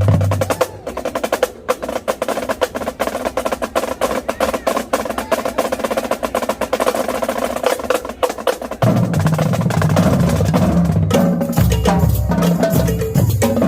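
Marching drumline playing: snare drums alone in fast, dense rapid-fire strokes, then, about nine seconds in, the bass drums join in with low pitched hits and the full line plays together.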